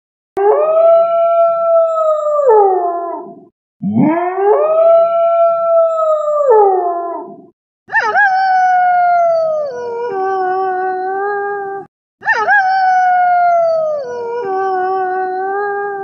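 Wolf howling: four long howls of about three and a half seconds each, with short silent gaps between them. The first two rise, hold a steady pitch and fall away at the end; the last two start high and step down to a lower held note, each pair looking like the same howl repeated.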